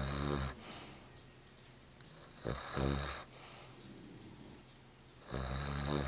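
Cavalier King Charles Spaniel snoring in its sleep: three snores about two and a half to three seconds apart, each under a second long.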